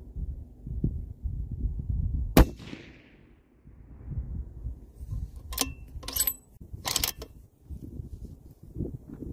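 A single shot from a 300 Norma Magnum bolt-action rifle on a Terminus Zeus action, about two and a half seconds in, with a tail that dies away over about a second. A few seconds later come three quick metallic clacks of the bolt being worked.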